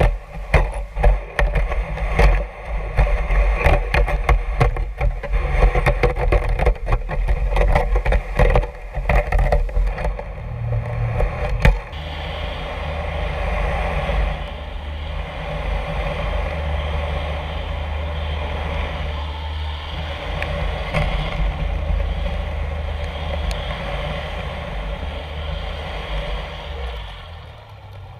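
Clam dredge dragging through sand on the seabed, heard underwater: rapid knocking and rattling with a heavy low rumble, which about twelve seconds in gives way to a steadier low mechanical drone.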